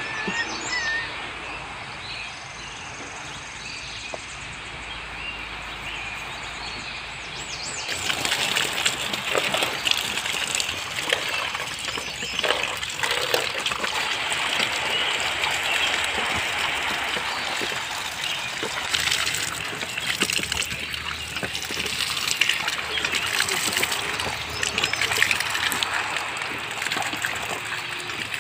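Water running and splashing over the roots of a freshly pulled garden plant as the soil is washed off, coming in louder about eight seconds in and carrying on with many small splashes and drips.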